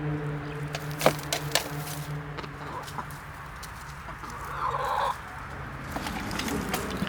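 Chickens clucking, with a few sharp clicks early on and one louder, short hen call about five seconds in.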